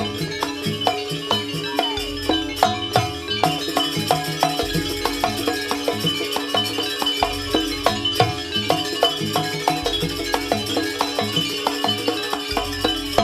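Javanese jaranan ensemble music: a steady, even drive of drum and metal percussion strokes over held tones, with a deep low stroke about every two and a half seconds.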